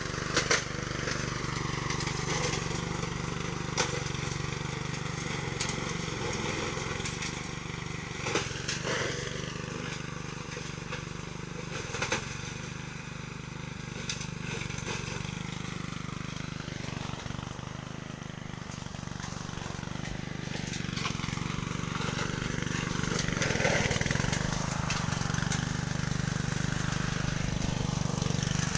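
Honda self-propelled lawn mower's four-stroke engine running steadily, with a few sharp clicks.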